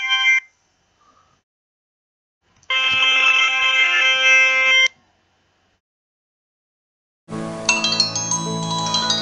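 Alcatel mobile phone power-on/power-off melodies. The tail of one OT-E159 jingle ends right at the start. Then a second short, roughly two-second OT-E159 polyphonic tune plays. After a pause, a fuller OT-E801 jingle with low bass notes begins about seven seconds in.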